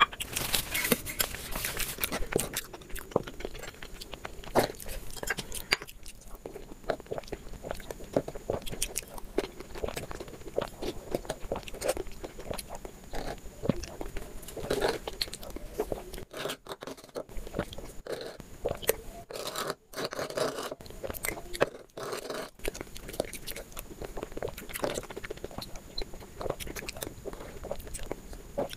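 Close-up eating sounds: a metal spoon scooping a soft yellow pudding-like dessert from clay bowls, with wet chewing and mouth clicks at an irregular pace.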